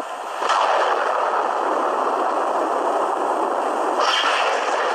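Thunder: a clap breaks about half a second in and rolls on as a long rumble, with a second, sharper crack near the end. Recorded on a phone microphone, so the deep bass of the thunder is missing.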